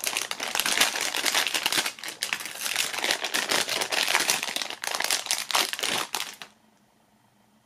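Clear plastic pouch crinkling as it is handled and a small plastic connector is pulled out of it, with a steady crackling that stops about six seconds in.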